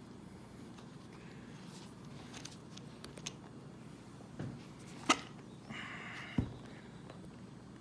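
Scattered small clicks and taps of a 7 mm nut driver and plastic RC truck parts being handled as the front wheel is taken off the hub. The sharpest click comes about five seconds in, followed by a brief scrape and a dull knock.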